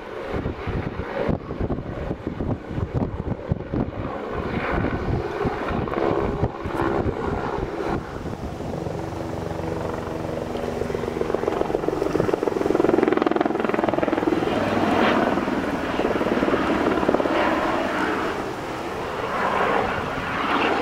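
Aerospatiale Squirrel helicopter's turbine and rotor running in flight, with a dip in tone and a swell in loudness about halfway through. Strong wind buffets the microphone in the first few seconds.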